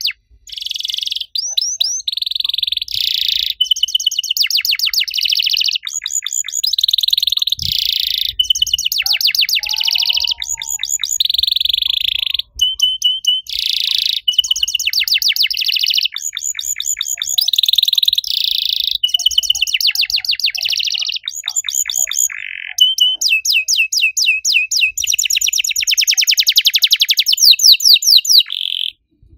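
Domestic canary singing a long, near-continuous song of rapid high trills and chirps and held whistled notes, phrase after phrase with only brief breaks, ending in a long fast trill.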